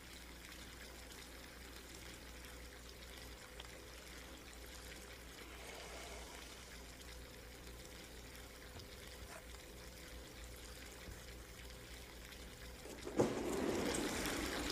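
Bath being filled from the tap: faint, steady running and trickling water that gets louder near the end.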